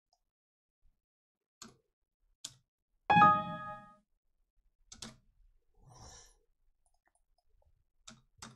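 Computer mouse clicks at intervals, with a loud electronic alert chime about three seconds in that rings with several pitches and fades within a second.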